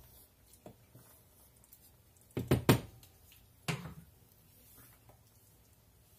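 Wooden spoon knocking against a stainless steel skillet: a quick run of sharp knocks about two and a half seconds in, then one more knock about a second later.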